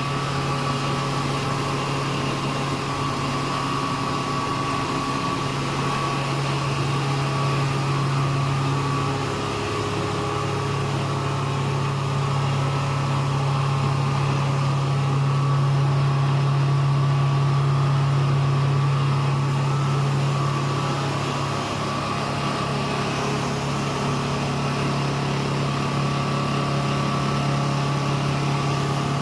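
Sawdust grinder (impact pulverizer) running steadily, a constant machine hum with steady whining tones above it.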